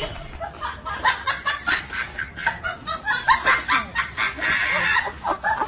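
Laughter in quick, short bursts, several a second, going on throughout.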